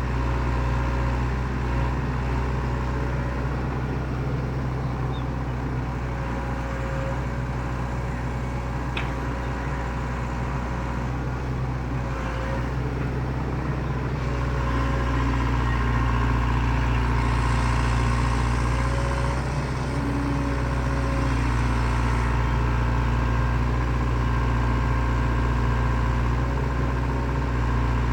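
Excavator's diesel engine running steadily with a constant whine over it, growing a little louder about halfway through.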